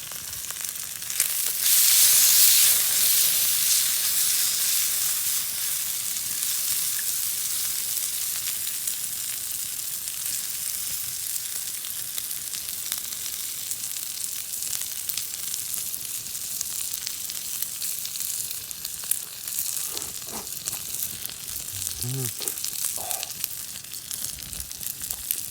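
Raw lamb frying in a hot pan over a campfire: the sizzle flares up loudly about a second in, then gradually settles into a steady sizzle.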